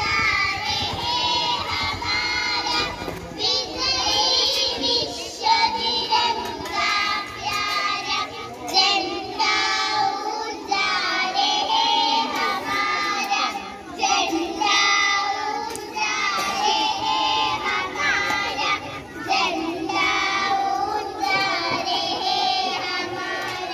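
Group of children singing a patriotic song together, in sustained sung phrases.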